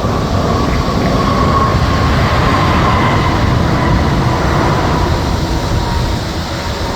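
Jet airliner's engines running as the aircraft passes: a loud, steady rush with a whine that slowly falls in pitch.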